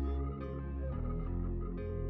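Background music: calm, ambient instrumental with soft plucked notes over sustained low tones.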